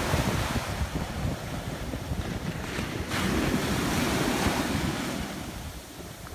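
Small waves of a slightly choppy sea breaking at the shoreline and washing up over sand, with wind rumbling on the microphone. A wave breaks about three seconds in and its wash fades away near the end.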